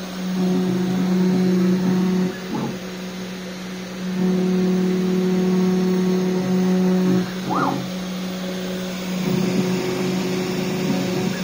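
Home-built CNC router running a test engraving: a steady motor hum that alternates between louder and softer stretches every few seconds as the machine works. Twice, a short whine rises and falls in pitch.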